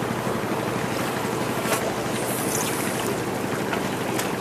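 Steady wind and sea noise at the water's edge, with a few faint clicks.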